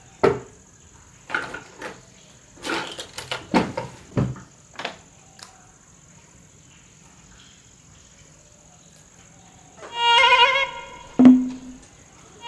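A scatter of light knocks and clatters, then after a quiet stretch a short wavering musical tone, a brief low blip, and the wavering tone again: an added comic sound effect.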